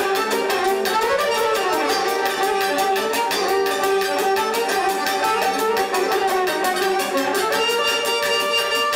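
Fast Romani folk dance music led by a violin over a quick, even beat.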